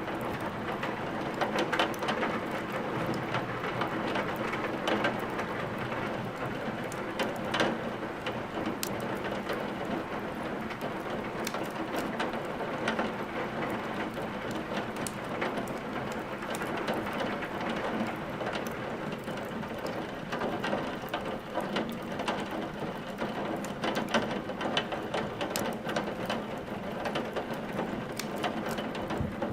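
Steady rain falling, mixed with a wood fire crackling, with irregular sharp pops and snaps scattered throughout.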